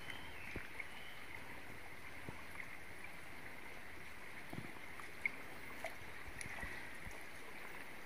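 Faint steady rush of a forest stream, with a few soft clicks.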